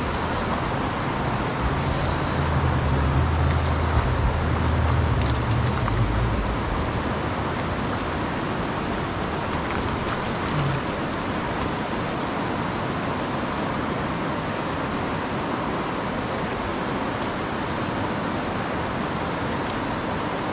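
Steady rush of river water running over rocks, with a low rumble over it for about the first six seconds.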